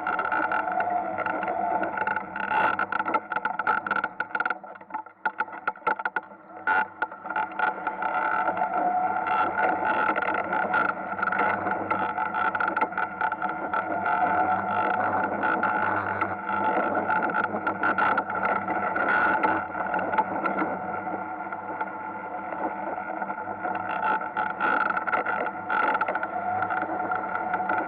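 Ice kart's engine running steadily, heard close from the kart itself, with a rough, slightly distorted tone. It eases off briefly about five seconds in, then holds a fairly even pitch with small rises and falls.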